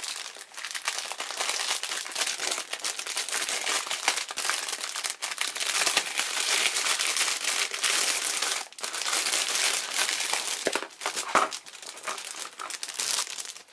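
Clear plastic polybag crinkling almost without pause as hands rummage inside it and pull out the kit's parts, with a sharp click near the end.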